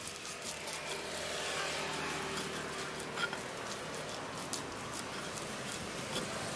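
A motor vehicle's engine running steadily, its hum swelling about a second in, with a few faint ticks and taps.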